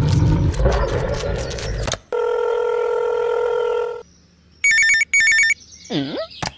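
Telephone sound effects: a steady beeping tone held for about two seconds, then two short bursts of electronic phone ringing, followed by a quick swooping glide. It opens with about two seconds of loud, noisy sound full of rapid clicks.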